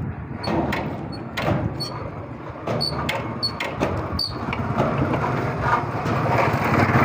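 Motorcycle engine idling, with a series of sharp metallic clinks in the first four seconds, each with a brief high ring. The clinks are the stand rattling against the frame, the noise fault being checked.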